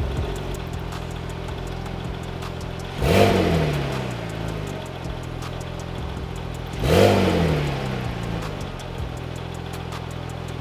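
2005 Porsche 911 Turbo S (996) twin-turbo flat-six idling steadily through its Ruf muffler. It is blipped twice, about four seconds apart, and each rev climbs quickly and falls back to idle.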